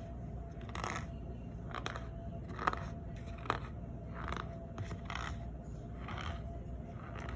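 Cornstarch powder squeaking and crunching as it is squeezed, in a series of about nine short squeaks, with two sharper clicks around the middle.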